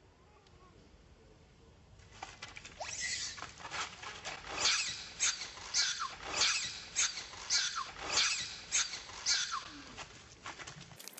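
Baby long-tailed macaque screaming in distress: a run of shrill, high-pitched cries about two a second, starting about two seconds in and dying away near the end.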